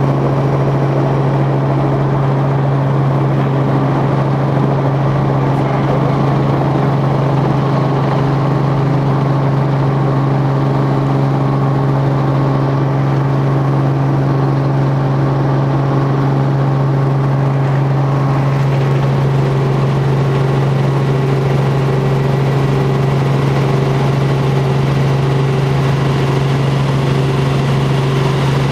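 Helicopter in flight: a loud, steady drone of engine and rotors, with a strong low hum. About two thirds of the way through, the higher tones in the drone shift.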